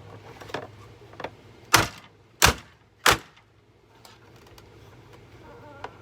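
Hammer blows on a Hoover vacuum cleaner being smashed apart: a couple of lighter knocks, then three hard strikes about two-thirds of a second apart.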